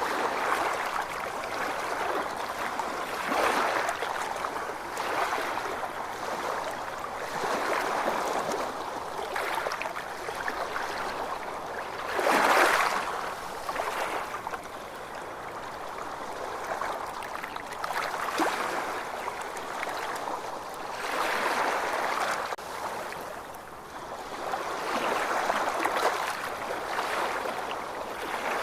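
Ocean waves washing in, a steady rush of water that swells and ebbs every couple of seconds, with one louder wave about halfway through.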